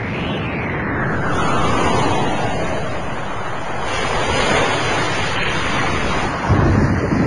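Ocean waves washing with wind, an even rushing noise that sweeps slowly downward over the first few seconds, with heavier low rumbling from about six and a half seconds in.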